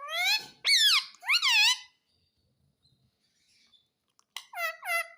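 Pet parrot calling in high, squawky notes whose pitch swoops up and down. Three calls come in the first two seconds, then a pause, then a quick run of three shorter calls near the end.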